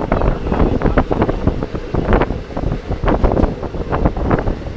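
Passenger train running at speed, heard from inside the carriage: a steady rumble with dense rattling and clatter, and wind buffeting the microphone.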